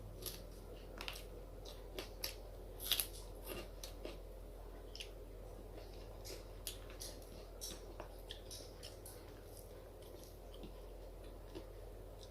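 Close-miked eating of rice and curry: chewing with wet lip smacks and mouth clicks, coming irregularly, a cluster of louder ones about three seconds in, over a faint steady hum.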